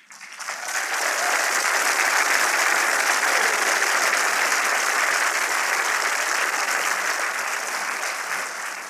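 Large audience in a hall applauding: the clapping builds over about the first second, holds steady, then begins to fade near the end.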